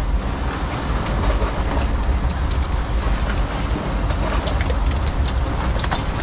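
Fishing boat's engine running with a steady low rumble under rushing wind and water noise, and several sharp knocks about four to six seconds in as a mahi-mahi is swung aboard over the gunwale.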